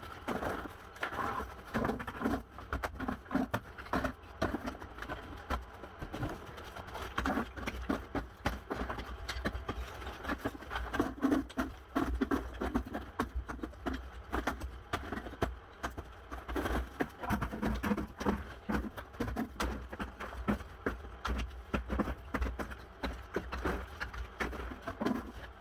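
Irregular knocking, scraping and clattering of floor demolition work, tearing out old flooring by hand, over a steady low hum.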